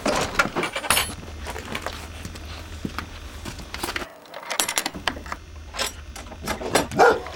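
Irregular metallic clinking and rattling of a gate chain and a feed bucket's wire handle as the bucket is carried, with a short cry near the end.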